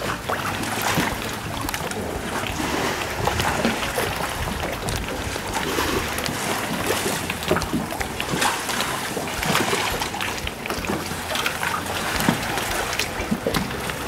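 Calm sea water lapping against a moored yacht and a wooden pier, with wind on the microphone and scattered light knocks and clicks.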